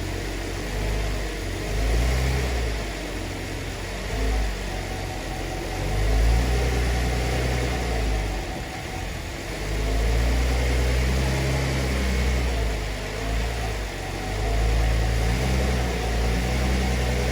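Cadillac CTS engine idling and given light throttle in gear against the brake, its sound swelling and easing several times as the transmission is shifted between reverse and drive. This is a brake-torque test for a broken motor mount; on this car the engine rocks on a bad driver's side mount.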